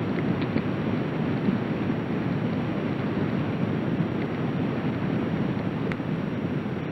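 Steady rushing water noise of underwater wave surge, even and unbroken.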